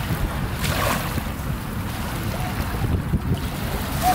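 Wind buffeting the camera microphone in a fluctuating low rumble, over small waves lapping against rocks in shallow water.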